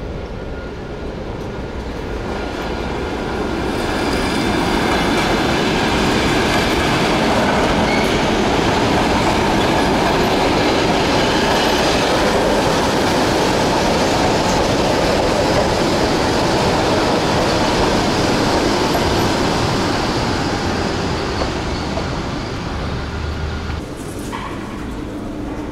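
Electric commuter train running past on the tracks, its noise swelling over the first few seconds, staying loud, then fading away a few seconds before the end.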